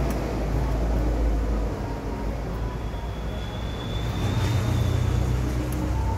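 A steady low mechanical rumble, its pitch stepping up about four seconds in.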